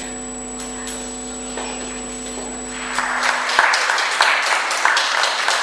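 Audience applauding, breaking out about three seconds in and getting louder, over background music with steady held notes.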